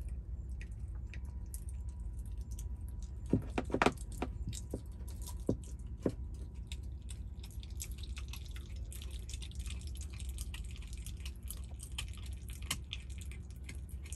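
Red fox chewing a raw chicken leg: crackly, clicking chewing sounds, with a cluster of louder sharp clicks about three to four seconds in and denser crackling over the second half.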